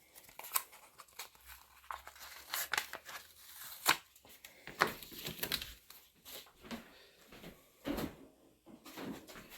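Paper and plastic mail packaging being handled and torn open by hand: irregular rustling, crinkling and tearing with scattered small clicks and taps.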